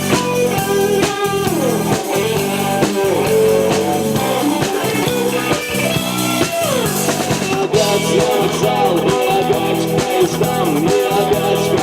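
Rock band playing an instrumental passage: guitars over a steady drum-kit beat, with a lead line that slides in pitch.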